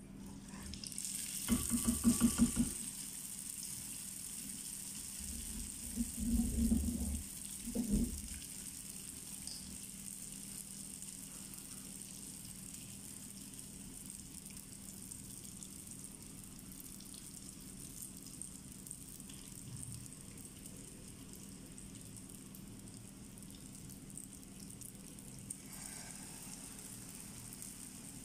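Rings of sfenj dough deep-frying in a small saucepan of hot oil: a steady sizzle. Short louder knocks of handling sound about two seconds in and again between about six and eight seconds.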